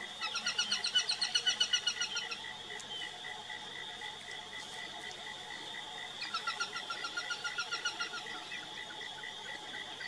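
A falcon calling in two fast chattering series of quick repeated notes, each lasting about two seconds. The first series is louder than the second, which comes about four seconds after it ends. A faint steady pulsing chirp runs underneath.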